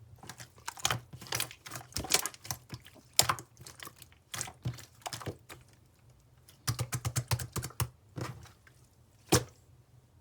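Jelly slime being pressed and poked by hand, giving irregular sharp clicks and crackling pops. There is a quick run of about eight clicks past the middle and one louder pop near the end.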